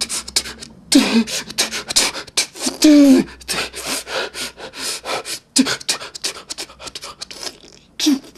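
A man's forceful, hissing breaths and mouth noises in rapid short bursts, broken by three brief voiced cries that fall in pitch: about a second in, around three seconds in, and near the end.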